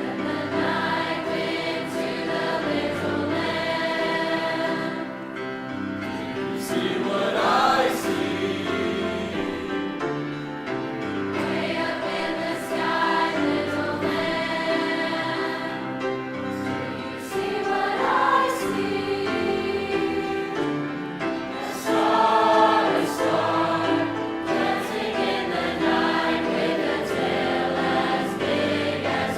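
High school choir singing a Christmas concert piece, many voices holding and moving between sustained chords.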